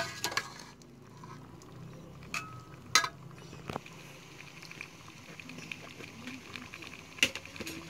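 Pork igado stew simmering with a soft, steady bubbling in a rice cooker's inner pot, and a metal spoon clinking against the pot several times.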